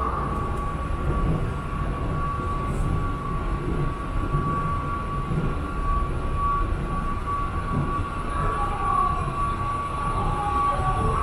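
Escalator running upward: a steady low rumble of the moving steps and drive, with a steady high whine over it.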